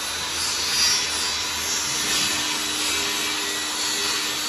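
Steady hissing noise with a faint low hum under it, even and unbroken.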